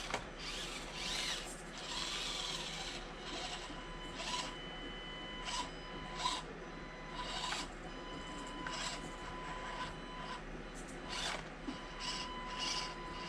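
Axial SCX24 Deadbolt 1/24 scale micro rock crawler's small electric motor and gears whirring in a dozen short bursts as it is driven over rocks, with a faint steady high tone underneath.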